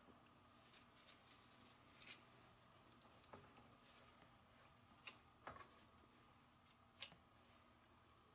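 Near silence with a few faint, soft clicks and squishes from latex-gloved hands scooping and squeezing sticky sushi rice into small balls.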